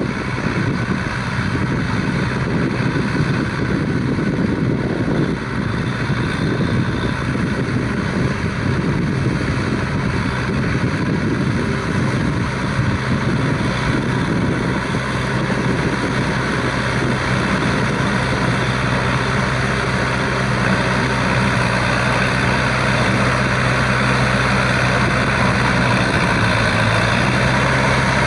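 Shibaura V52F tractor's 52 hp four-cylinder diesel engine running steadily under load as it drives a rear rotary tiller through a wet rice paddy. It grows a little louder toward the end as it comes closer.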